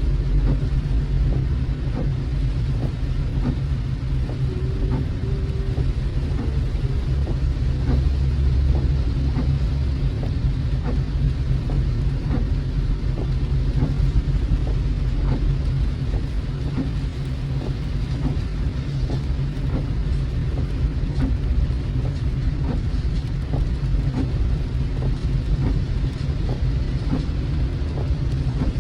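Car driving in rain, heard from inside the cabin: a steady low road-and-engine rumble with many scattered ticks of raindrops hitting the car.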